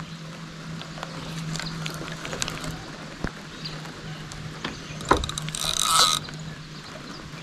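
Fishing reel clicking lightly, then about five seconds in a sharp tap and a short buzzing ratchet burst under a second long, as line is worked with a fish on the line.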